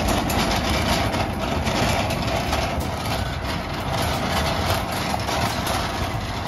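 Wire shopping cart pushed across a paved parking lot, its wheels and basket rattling steadily.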